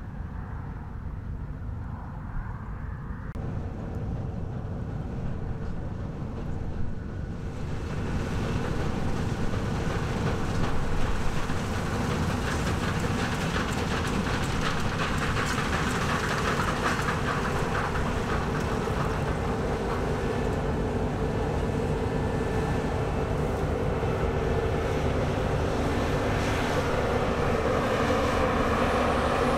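New Holland CR9090 combine harvester running as it cuts grain: a steady machine rumble with a rattling clatter, growing louder as it comes up close and passes by.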